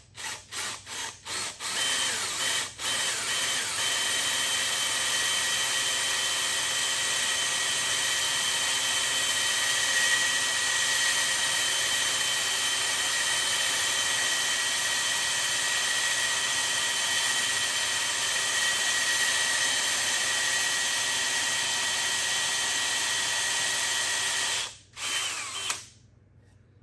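Cordless drill working into the end of a peeled log: a few quick trigger pulses, then a long steady run with a whine, stopping near the end after one last short burst.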